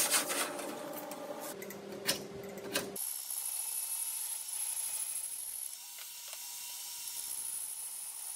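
Steel bar stock handled on a steel welding table: several sharp metal clanks and knocks that ring briefly. About three seconds in, this gives way to a portable bandsaw running with a steady high whine as steel stock is held up to its blade.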